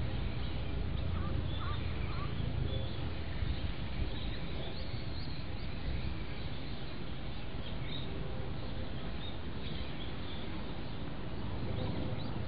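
A steady low rumble, with faint bird chirps now and then in the background.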